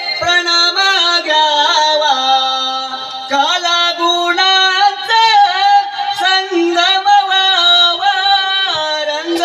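A high-pitched voice singing a Konkani Naman folk melody, the notes held long and bending between pitches, with no drums.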